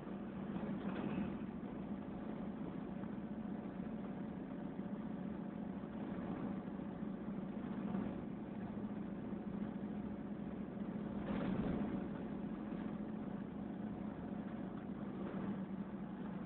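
1984 Ford F-250's 6.9-litre diesel V8 running steadily while the truck drives, heard from inside the cab, with tyre and road noise from the rough chip-sealed road. The sound swells briefly about eleven seconds in.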